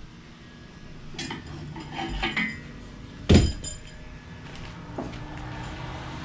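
Metal clinking and knocking as metal objects are handled at an engine stand: a few light clinks, then a sharp, loud clink with a short ring about three seconds in, and a lighter knock near the end.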